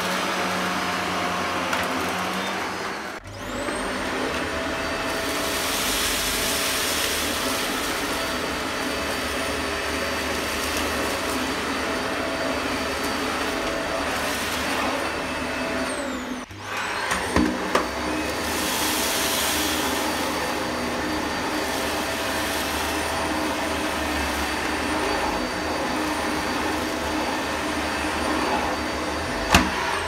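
Upright vacuum cleaners running on carpet, first a Shark Powered Lift-Away DuoClean and then a Dyson Light Ball: a steady motor whine over brush-bar noise. The sound breaks off briefly twice, with the motor whine falling away and starting up again. There are a few knocks soon after the second break and a sharp click near the end.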